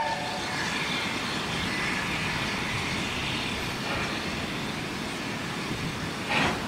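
Steam-hauled train running, a steady rushing noise with one louder short burst near the end.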